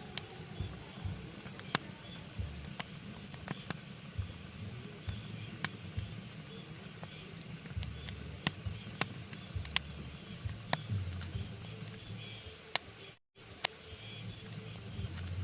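Pine logs burning in a fireplace, crackling with sharp irregular pops, a few a second, over a steady low rumble and hiss of the flames. The sound cuts out for a moment about two-thirds of the way through.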